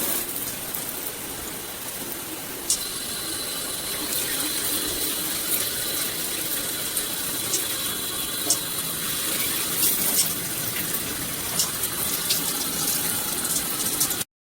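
Water spraying steadily from a handheld shower head, a continuous rush with a few short sharp clicks through it. The sound cuts off abruptly just before the end.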